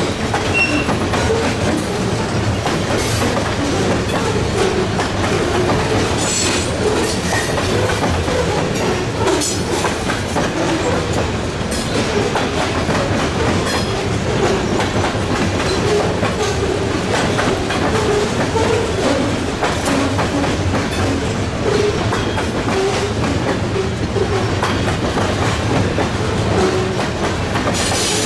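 Freight train cars rolling steadily past, their wheels clicking over the rail joints at irregular intervals.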